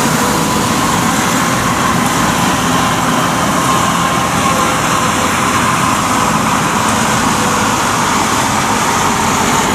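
Kubota combine harvesters' diesel engines and machinery running steadily as they drive, a dense noise with a thin steady whine over it.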